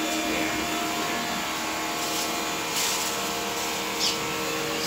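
Steady whirring hum of a small electric motor, like a fan, running without change, with a couple of brief high chirps about three and four seconds in.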